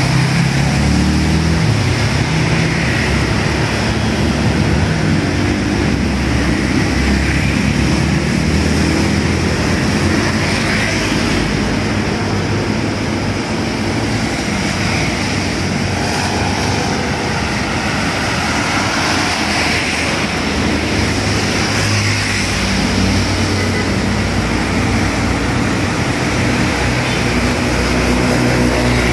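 Road traffic on wet asphalt: motorcycles and cars passing with their engines running and a steady hiss of tyres on the wet road. An engine grows louder near the end as vehicles come closer.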